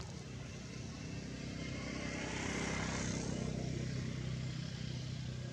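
A motor vehicle passing by: engine and road noise rise to a peak about halfway through, then fade away.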